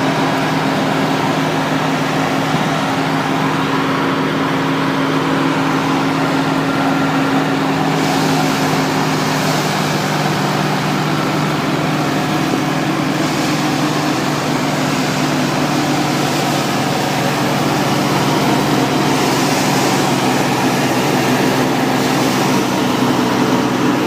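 Al Ghazi diesel tractor running steadily under load, driving a PTO wheat thresher: a steady engine and machine hum under the rushing hiss of straw and chaff going through the drum. The hiss grows stronger about a third of the way in.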